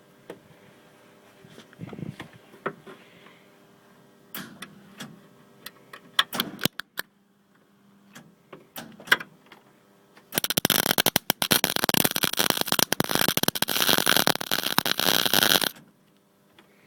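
A few scattered clicks and knocks, then about five seconds of welding on a new car scuttle panel. The arc crackles and spits densely and cuts off abruptly; the spitting comes from grease under the panel.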